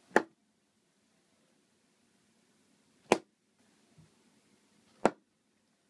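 Thrown playing cards striking and sticking in a styrofoam block: three sharp thwacks, about three seconds and then two seconds apart.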